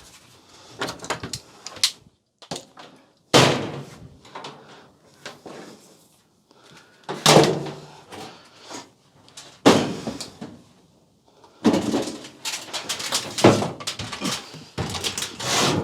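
Knocks, bangs and clatter of a clothes dryer's sheet-metal cabinet panels being handled and fitted back together, broken by a few abrupt cuts.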